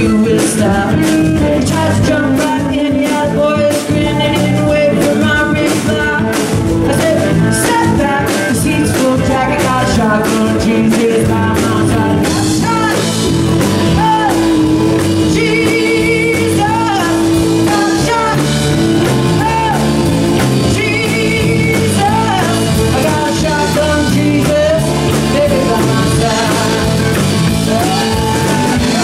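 A live rock band playing with a woman singing lead, electric guitar and drums keeping a steady beat. In the second half a lead line slides and bends between notes.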